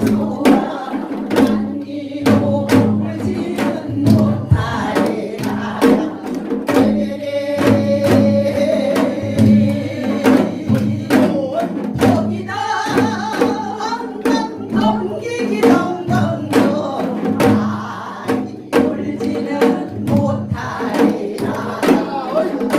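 Janggu hourglass drums beaten in a quick rhythm along with a sung, upbeat backing song.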